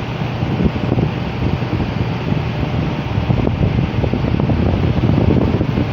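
Electric fan running, a steady rush of air that is heaviest in the low end.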